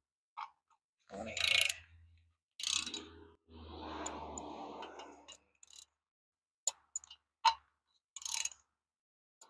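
Hand ratchet and socket clicking and clacking off and on as bolts are run down at the back of an LS engine, with a roughly two-second rasp near the middle. A sharp metallic click about seven and a half seconds in is the loudest.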